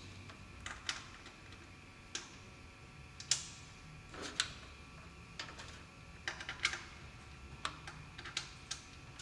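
Irregular small clicks and light knocks as BNC cable connectors are fitted onto the output sockets at the back of a gas analyzer and the cables are handled. The loudest click comes a little past three seconds in.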